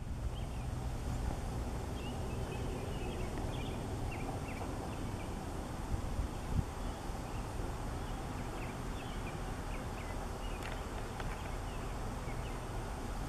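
Outdoor ambience: a steady low rumble with faint, short bird chirps scattered throughout, and a couple of soft clicks.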